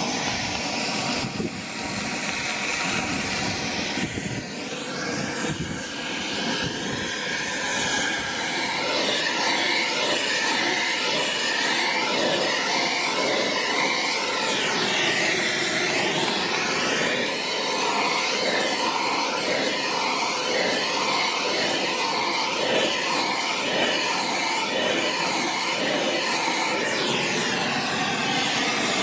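Oxy-acetylene cutting torch burning through rusted steel plate with a loud, steady hiss.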